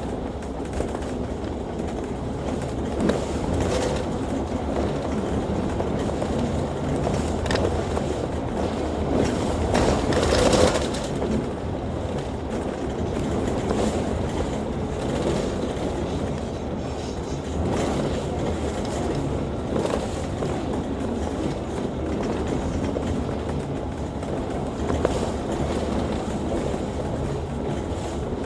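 Inside a moving Volvo B9TL double-decker bus: steady engine rumble and road noise with rattles from the body, swelling louder for a moment about ten seconds in.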